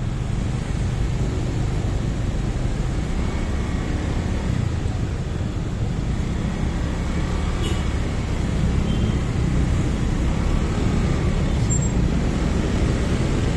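Slow-moving traffic in a jam, heard from a motorcycle: a steady low engine rumble from the bike and the cars packed around it.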